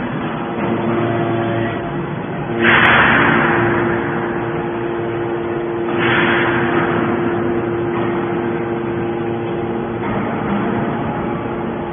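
Q43-3150 hydraulic alligator scrap shear running: a steady hum, with two loud surges of noise about two and a half and six seconds in, each fading over a second or so.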